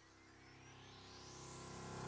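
Electronic music riser: a swoosh rising in pitch and growing steadily louder over sustained low tones.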